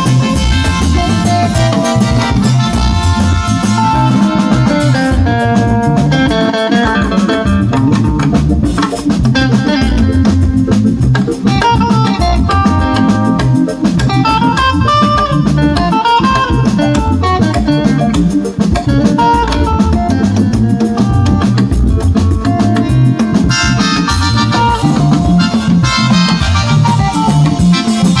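A live band playing an instrumental groove at a sound check, in an Igbo music style: a drum kit keeps a steady beat under melodic guitar lines, loud and continuous.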